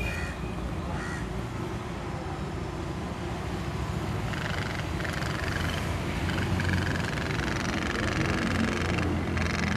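Tin pop-pop steamboat's flame-heated steam engine running, a fast, continuous putt-putting. A thin higher-pitched sound joins about four seconds in.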